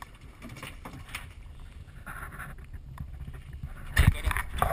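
Steady wind and water noise on the boat's open deck, with no engine running. About four seconds in there is a sudden loud knock as the camera is jolted.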